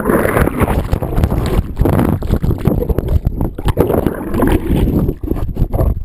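Water churning and bubbling around a waterproof camera held underwater: a loud muffled rumble with many small knocks and bubble pops, becoming more broken up near the end.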